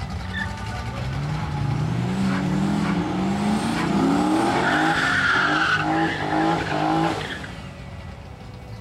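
Drag car doing a burnout: the engine revs climb for a few seconds, then are held high with a pulsing beat while the rear tyres squeal on the wet pad. It drops off about a second before the end.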